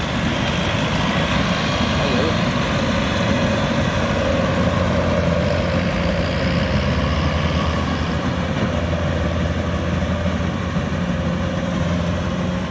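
Kubota DC-105X combine harvester running steadily while harvesting rice: a continuous diesel-engine drone mixed with the whir of its cutting and threshing machinery.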